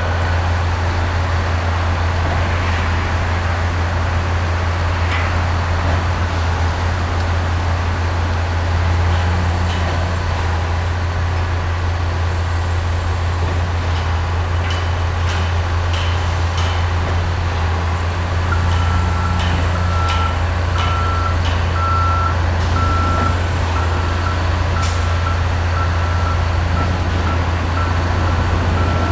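Heavy construction machinery engine running with a steady low drone. From about two-thirds of the way in, a reversing alarm beeps at an even pace. A few light metallic clicks come in between.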